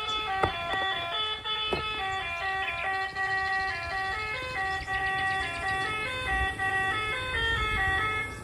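A simple electronic tune of clear, stepped beeping notes, with a couple of sharp clicks in the first two seconds.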